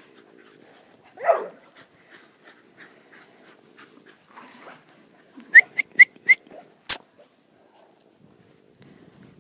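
Dogs at play: one short yelp falling in pitch about a second in, then a quick run of four sharp, high-pitched squeaks a little past the middle, with a single click after them.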